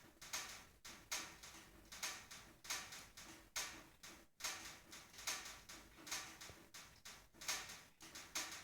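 Firewood burning in a wood stove's firebox, crackling with sharp, irregular pops about once or twice a second.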